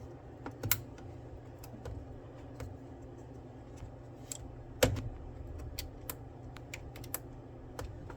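Scattered small plastic clicks and taps as a DDR5 RAM stick is handled and pushed into a motherboard memory slot, with its latches. The sharpest click comes about five seconds in.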